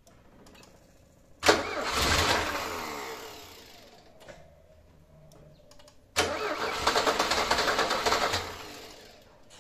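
Carburetted Mercedes-Benz M102 2.0-litre four-cylinder engine cranking on its starter twice, about a second and a half in and again about six seconds in, each time for two to three seconds without catching. It is a cold start without the gas pedal pressed, and the carburetted engine won't fire unless the mixture is enriched with the pedal.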